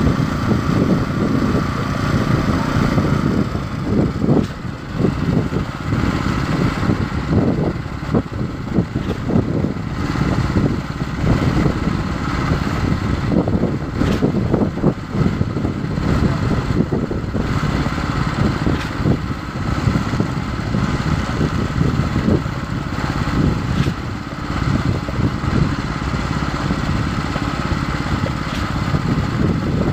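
Concrete pump truck's diesel engine running steadily under load while it pumps, with irregular knocks and clatter over it.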